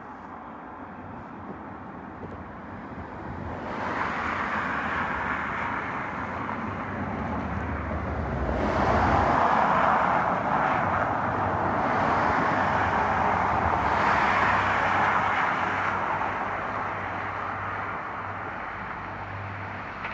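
Road traffic passing below: a few cars go by one after another, their tyre and engine noise swelling and fading, loudest about halfway through.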